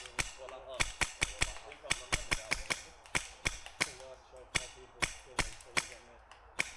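Airsoft guns firing: a rapid, irregular string of sharp cracks, some shots coming in quick clusters.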